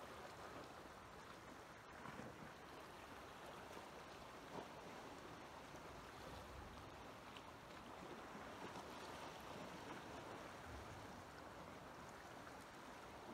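Faint, steady wash of calm sea water against shore rocks, with light wind on the microphone and a single faint click about four and a half seconds in.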